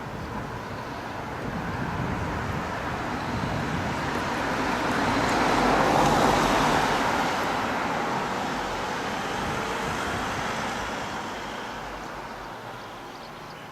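A road vehicle passing by: its noise swells to a peak about halfway through, then fades away.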